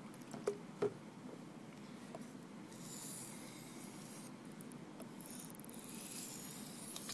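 A kitchen knife being drawn across a wet 400-grit ceramic water stone in two runs of sharpening strokes, a soft, hissy scrape starting about three seconds in. Two sharp clicks come just before, as water is splashed onto the stone from a plastic bottle.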